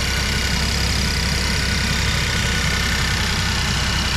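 2011 Buick LaCrosse engine idling steadily, running again after a corroded battery wire that caused a no-crank fault was repaired.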